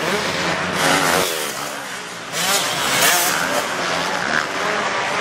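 Motocross bike engines revving hard, their pitch rising and falling over and over as the bikes accelerate and back off.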